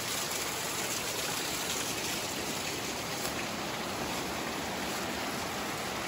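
Water of Laurel Creek flowing with a steady rush.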